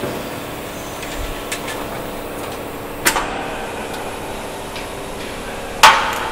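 Two sharp metallic knocks, about three seconds in and a louder one near the end, each ringing on briefly: tools striking the aluminium airframe and its steel jig. A steady workshop hum runs underneath.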